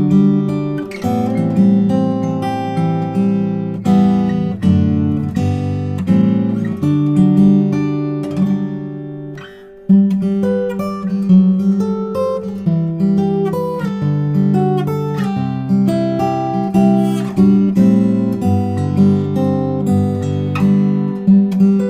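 Yamaha LL16 acoustic guitar played solo as a sound test, picked and strummed chords with single notes in between, recorded close on an MXL 2006 condenser microphone. A little before ten seconds in, a chord is left to ring and fade, then playing starts again with a fresh attack.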